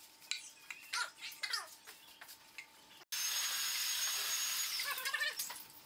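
A brush working finish over wood: a steady scratchy hiss that starts suddenly about three seconds in and lasts about two seconds. Short squeaky chirps come before it and again near the end.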